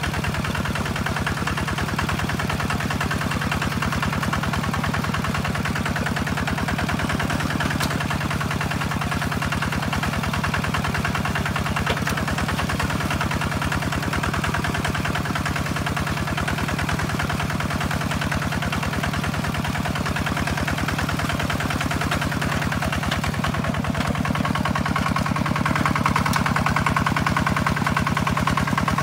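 Two-wheel walking tractor's single-cylinder diesel engine running steadily with a rapid even chug, driving its cage wheels through paddy mud. It gets a little louder near the end.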